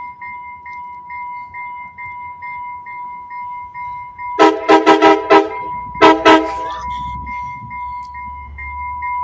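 Train horn sounded by the crew: four quick short toots, then two more a moment later. A steady high-pitched electronic tone with a faint regular pip runs underneath.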